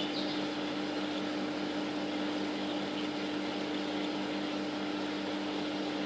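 A steady mechanical hum with a low two-note drone over a noisy hiss, like a fan or motor running. A faint bird chirp comes right at the start.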